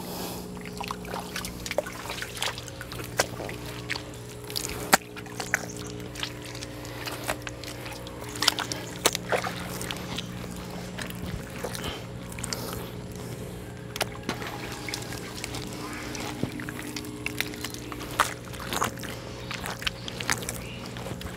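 Wet mud being slapped, pressed and squelched by hand and bare feet, with irregular splats and small water splashes, over soft background music holding long chords.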